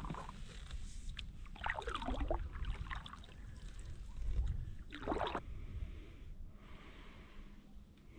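Stand-up paddleboard paddle strokes in calm lake water: the blade dipping and pulling with splashes and drips, the two main strokes about two and five seconds in, over a steady low rumble.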